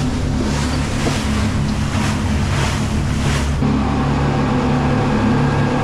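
Passenger motorboat's engines droning steadily under way, with a rush of wind and water spray surging repeatedly through an open cabin window. The rushing falls away about three and a half seconds in, leaving the engine drone.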